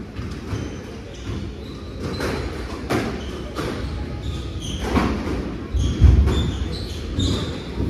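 Squash rally: the ball cracks off rackets and walls about every second, and shoes squeak on the wooden court floor, with a heavier thud about six seconds in.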